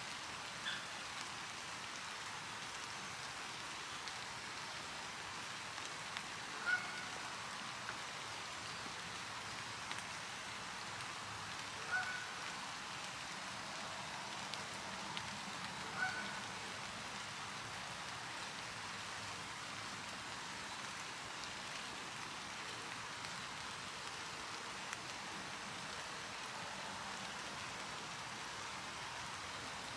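Steady soft outdoor hiss with a few short bird calls, the loudest about 7, 12 and 16 seconds in.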